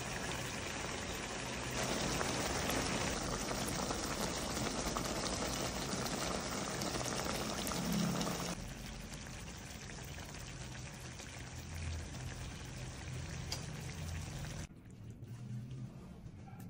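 Liquid bubbling and hissing as food cooks in a pan. The sound is a steady noise that gets louder about two seconds in, eases after about eight seconds, and falls off sharply near the end.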